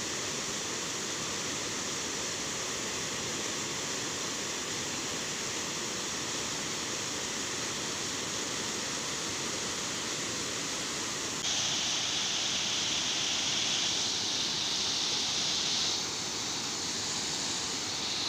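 Water pouring over a dam spillway into churning water below: a steady rush that grows louder and hissier for a few seconds about two-thirds of the way through.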